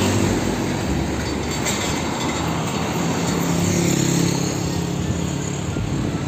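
Car-carrier truck driving along a road: a steady engine hum with tyre and road noise.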